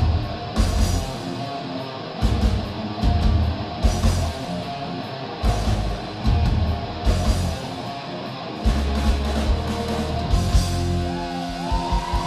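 Live heavy metal band playing, with distorted electric guitar over bass and drum kit, punctuated by loud accented hits from the whole band.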